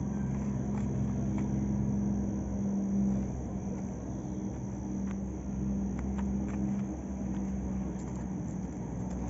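A steady low engine hum over a low rumble, with a few faint ticks.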